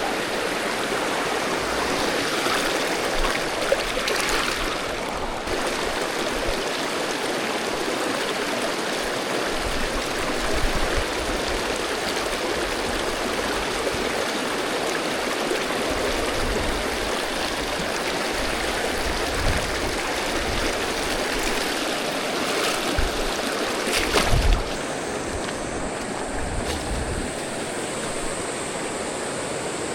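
River water rushing over rocks, a steady even noise, with occasional low thumps on the microphone. About 25 seconds in the sound drops slightly and a faint steady high tone comes in.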